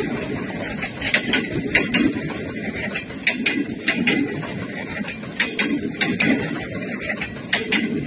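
Passenger coaches rolling past at close range: the steel wheels clatter on the track in repeating groups of sharp metallic clicks, about one group a second, over a low rumble.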